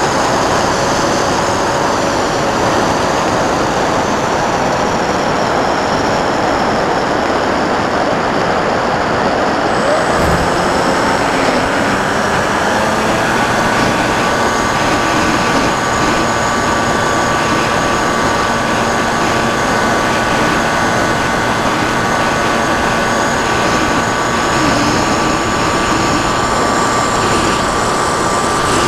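Wind rushing loudly over a camera mounted on a radio-controlled model plane in flight, with the steady whine of the plane's propeller motor. The whine changes pitch a little before halfway, holds steady, then rises at the very end. A single short click comes about ten seconds in.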